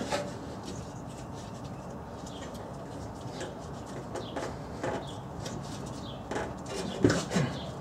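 Faint, scattered knocks and rubbing as a new exhaust B-pipe is lifted under the car and its rubber hanger insulators are pushed onto the hanger posts. The knocks are a little louder near the end.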